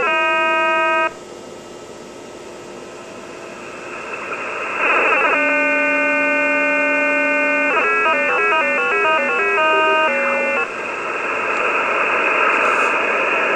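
An unidentified signal received on the 10-metre amateur band through a radio receiver: a buzzy tone that holds one pitch, then hops rapidly between pitches, alternating with stretches of static hiss. The tone stops about a second in, leaving quieter hiss that swells, returns as a steady tone around five seconds in, steps quickly through several pitches for about three seconds, and gives way to loud static near the end.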